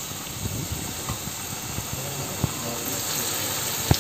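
Banana batter fritters frying in hot oil in a wok: a steady sizzling hiss. Two short knocks break in, one about halfway and a louder one near the end.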